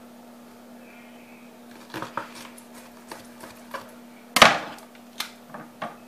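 Kitchen knife chopping through an ear of corn and knocking on a wooden cutting board: a few sharp knocks, two close together about two seconds in and the loudest about four and a half seconds in.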